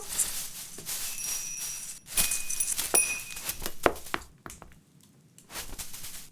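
Cartoon sound effects of rustling and scrabbling with clinks and knocks, bright ringing tones sounding between about two and three seconds in, and a sharp knock near four seconds.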